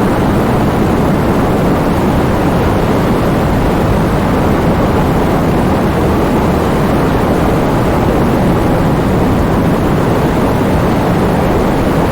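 Wind blowing through heavy rain: a loud, steady rushing noise weighted toward the low end, with no gusts, breaks or separate drops standing out.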